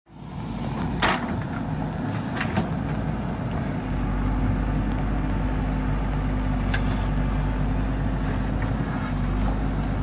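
JCB backhoe loader's diesel engine running steadily while the backhoe arm digs, getting louder about four seconds in as it takes more load. A few sharp knocks stand out, about a second in, twice around two and a half seconds, and once near seven seconds.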